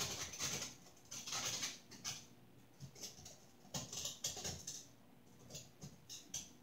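Scratchy rustling in four short spells with brief pauses between.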